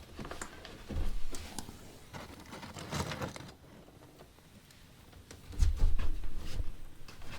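Wood fire in a fireplace crackling and popping, with irregular sharp snaps. Twice it is joined by dull low thuds: about a second in, and again about two seconds before the end.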